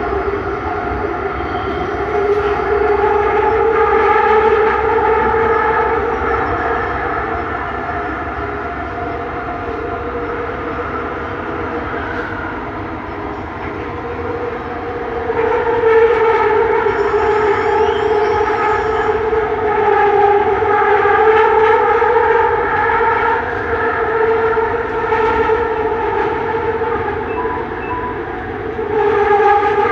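Bombardier Innovia Metro 300 train heard from on board while running: a steady whine in several tones from its linear-induction propulsion, wavering slowly in pitch over the rumble of the ride. The whine grows louder about halfway through.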